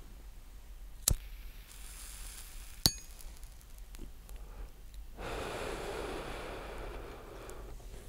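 Two sharp metallic lighter clicks, about a second and three seconds in, the second ringing briefly. Then a long breath on a cigarette lasting about two and a half seconds.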